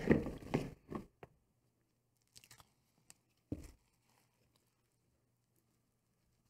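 Rye flour poured from a bowl into a plastic mixing bowl of water and sourdough, a short rustling pour that ends after about half a second. A few small clicks follow, and a single knock comes about three and a half seconds in.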